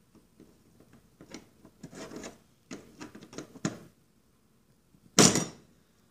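Fuel pump lock ring scraping and rubbing against the tank as it is worked by hand, in short scratchy bouts. The ring will not catch because the new tank seal holds it up. About five seconds in there is one loud thump.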